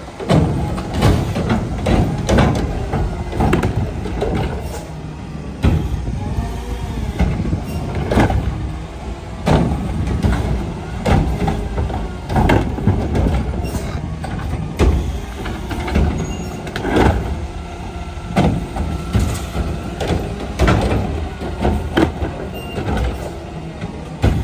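Mack LR garbage truck running while its Curotto Can automated arm grabs, lifts and dumps wheeled plastic carts, with a hydraulic whine that rises and falls. Repeated loud bangs of carts knocking against the can sound throughout.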